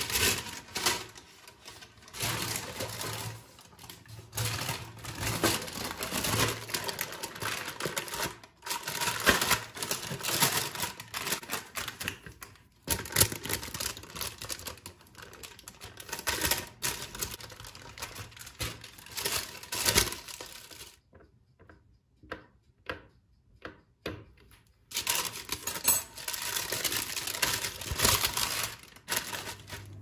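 Baking paper crinkling and rustling as it is handled over pastry dough in a fluted metal tart pan, with many small clicks and taps. For a few seconds about two-thirds through there are only separate clicks before the crinkling resumes.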